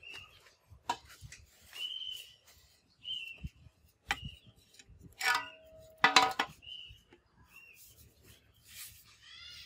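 A few sharp knocks and ringing metallic clinks from parts or tools being handled, the loudest pair about five to six seconds in. Through them a bird chirps repeatedly with short high calls.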